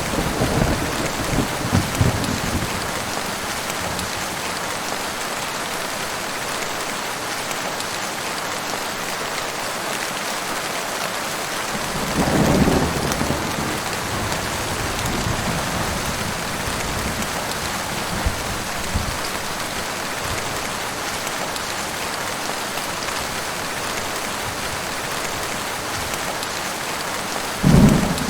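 Heavy rain falling steadily, with low rolls of thunder at the start, about twelve seconds in, and again just before the end.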